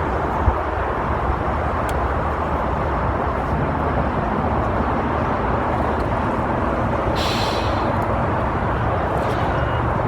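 Steady low rumble of running vehicle engines and traffic, with a short hiss of air about seven seconds in.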